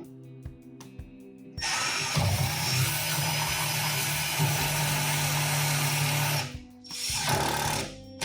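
Cordless power driver running screws or bolts into the wall to fasten a monitor wall-mount bracket: a long run of about five seconds starting a second and a half in, then a shorter run near the end.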